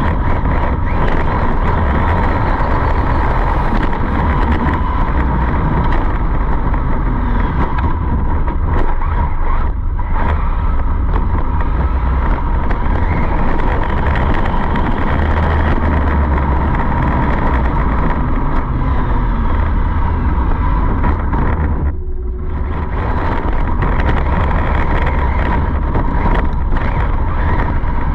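Wind rumble and a steady whine from a fast-running electric RC car heard on its onboard camera's microphone, with a brief drop in level near the end.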